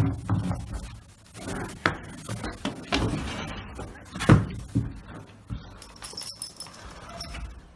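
Foal scrambling up out of a bed of hay: hay rustling, with a run of knocks and thumps from its hooves and body, the loudest about four seconds in.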